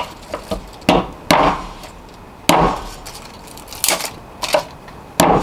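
Small multitool mini axe chopping a little branch on a block of wood: about seven sharp chops at uneven intervals.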